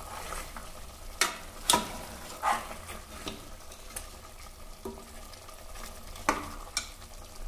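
Steel ladle stirring mutton masala in an aluminium pressure cooker, with the frying masala sizzling underneath. The ladle scrapes and knocks sharply against the pot a few times: about a second in, twice more within the next two seconds, and twice near the end.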